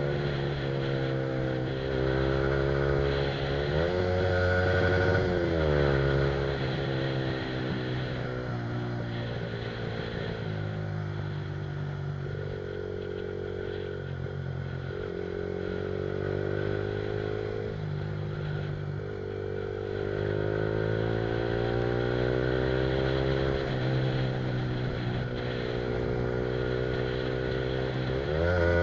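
Yamaha R15's single-cylinder engine through an Akrapovic aftermarket exhaust, ridden at speed: its pitch climbs as it revs out and drops sharply at each upshift or throttle-off, settling lower and steadier for a while in the middle, with wind rushing past.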